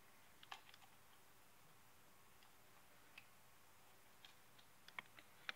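Near silence, with a few faint, scattered clicks of small parts being handled: a small cluster about half a second in, one a little after three seconds, and several more near the end.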